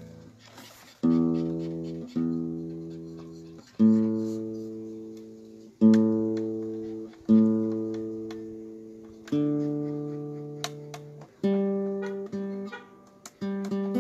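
Acoustic guitar played slowly: single chords strummed about every one to two seconds and left to ring out and fade before the next.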